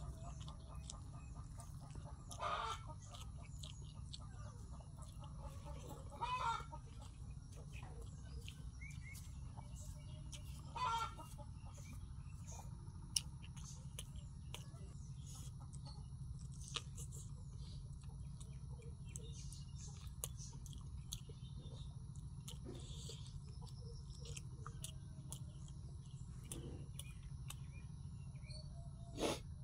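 Chickens clucking nearby: three short calls about four seconds apart, then scattered small clicks, over a steady low hum.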